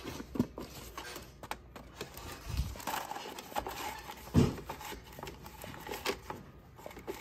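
Fluted paper coffee filter crinkling and rustling as it is pulled off a stack and pressed into a coffee maker's brew basket, with light handling clicks. A dull thump about four seconds in.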